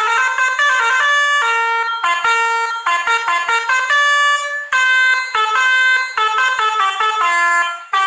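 Basuri 'telolet' multi-tone bus horn playing a fast melody. Its notes are short and steady, changing pitch several times a second, with a couple of brief breaks.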